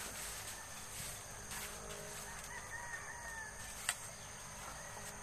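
A rooster crowing faintly, one long crow a little past halfway. A single sharp knock follows right after it.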